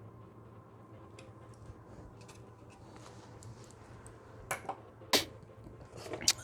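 Faint scattered ticks of hand tools on bolts, then a few sharp clicks near the end, fitting a click-type torque wrench breaking over at its 12 Nm setting as the engine guard bolts are tightened.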